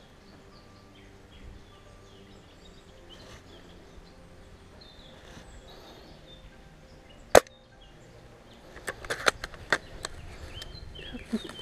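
A single sharp shot from a Tokyo Marui VSR-10 G-Spec spring-powered bolt-action airsoft rifle about seven seconds in, followed a second and a half later by a quick run of clicks from the bolt being worked.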